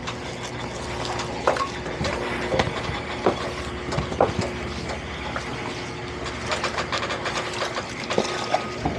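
Suzuki outboard idling with a steady hum, with water lapping and scattered knocks of the boat and its gear.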